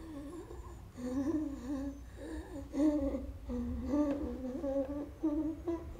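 A woman humming a lullaby in short phrases of about a second each, her pitch gently rising and falling, with brief pauses between phrases.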